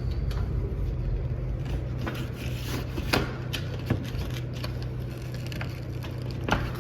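A cardboard-framed pleated air filter is handled and slid into the filter slot of a running indoor HVAC unit, with scraping and a few sharp clicks and knocks. Under it, a steady low hum from the running system.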